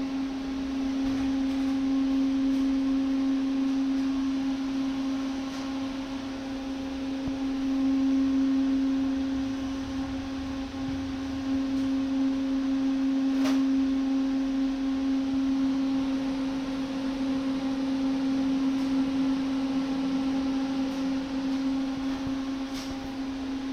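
Panasonic YD-350GB1 digital welding power source switched on and idling with no arc struck: a steady hum with one strong low-mid tone and fainter overtones, and a faint tick or two.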